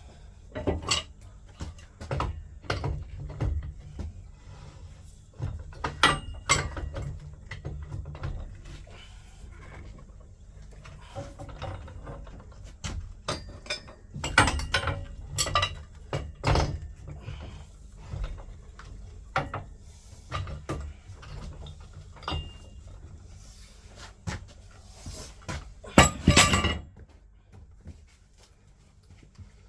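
Irregular metallic clinks, knocks and clatter of plumbing tools and pipe fittings being handled, with a louder clatter near the end, over a low steady hum.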